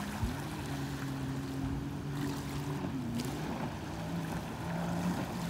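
Jet ski engine running out on the water, a steady drone whose pitch dips briefly twice as the throttle eases and comes back, then settles lower near the end, with wind on the microphone.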